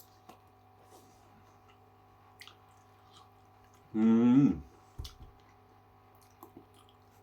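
A man chewing and biting into chicken wings: faint, scattered wet clicks and smacks of eating, with one short voiced sound from him about four seconds in.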